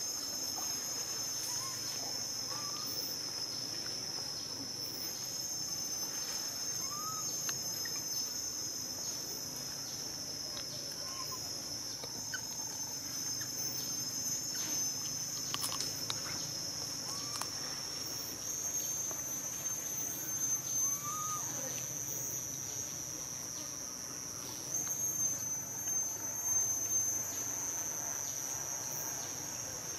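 Steady high-pitched drone of an insect chorus, shifting slightly in pitch a few times, with faint short rising chirps every few seconds.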